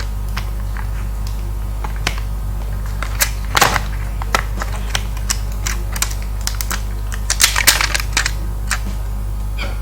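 Irregular light clicks and taps of hard plastic laptop parts being handled and fitted as the ThinkPad T470's secondary battery is set into its place in the chassis. A steady low mains hum runs underneath.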